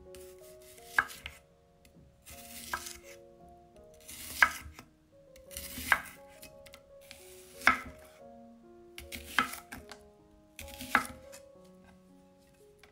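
Chef's knife slicing a red onion into rings on a wooden cutting board: seven slow cuts, each a short crunch through the onion ending in a knock of the blade on the wood, about one and a half seconds apart. Soft piano music plays underneath.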